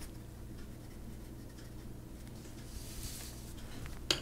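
A Prismacolor Premier colored pencil shading on drawing paper: a faint, steady scratching of pencil lead rubbed across the paper.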